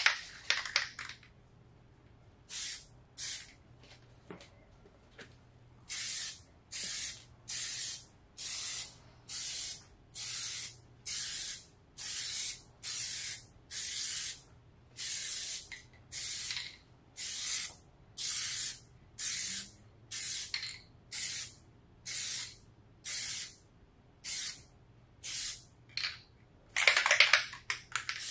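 Aerosol can of Plasti Dip rubber coating sprayed onto a wheel rim in many short bursts, a string of sharp hisses each about half a second long, coming a little faster than one a second. A louder rattle around the start and again near the end is the can being shaken, its mixing ball clattering inside.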